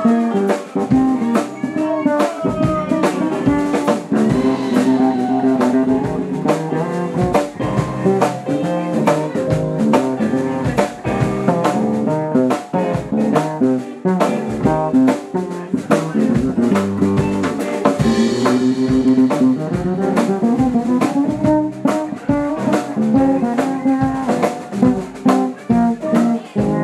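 Guitar, bass and drums playing an instrumental break of a rockabilly song: the guitar picks melodic lines over a walking bass line and a steady drum beat.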